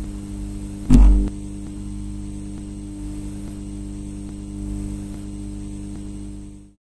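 Electrical buzzing hum of a neon sign sound effect, with a single heavy low thump about a second in as the letters light up. The hum stops just before the end.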